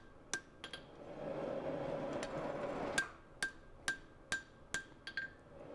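Hand hammer blows on a hot knife blade lying on a steel anvil, each strike with a short metallic ring, as the edge bevel is forged thinner. Two quick blows near the start, a pause, then a steady run of about six blows at roughly two a second.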